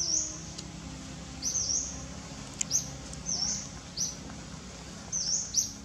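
A bird calling repeatedly: short high chirps, often in quick pairs, coming about once a second.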